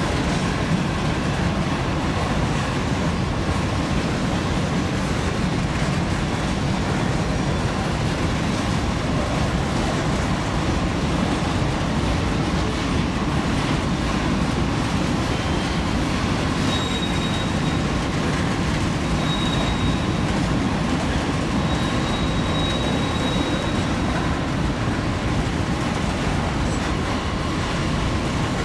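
Freight train of hopper cars rolling across a steel girder bridge: a steady rumble of wheels on rail. A few brief, faint, high wheel squeals come partway through.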